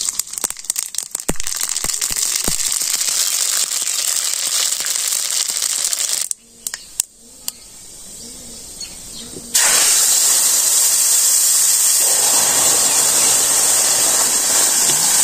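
Mustard seeds and dried spices spluttering in hot oil in a karahi, with many sharp pops, then a quieter spell. About nine and a half seconds in, boiled dal is poured onto the hot tempering and sets off a sudden, loud, steady sizzle.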